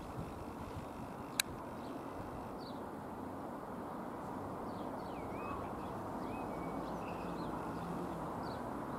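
Distant drone of the Piper PA-28-180 Cherokee's four-cylinder piston engine and propeller passing overhead, growing slightly louder as the plane approaches. Faint bird chirps come and go, and there is a single sharp click about one and a half seconds in.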